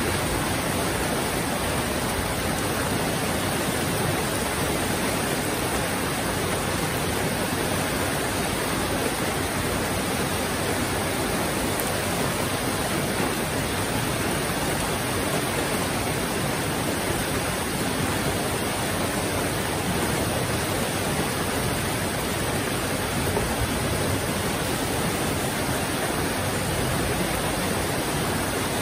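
Heavy rain falling steadily, an even hiss that never breaks or changes.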